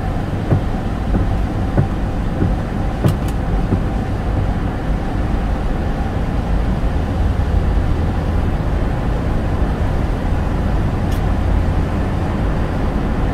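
Steady road noise heard inside a car's cabin: tyre and engine rumble on a wet road through a tunnel. Two brief clicks come about three seconds in and again near the end.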